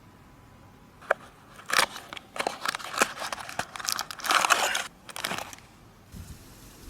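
Toy packaging being opened and handled: a sharp click about a second in, then a few seconds of crackling and crinkling, loudest near the middle.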